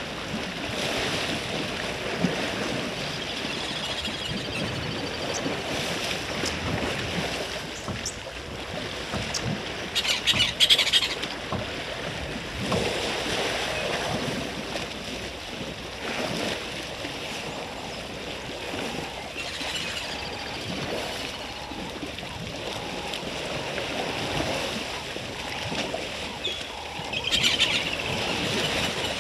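Water sloshing and splashing as elephants bathe and swim in a waterhole, with a bird's bursts of chirping calls about ten seconds in and again near the end.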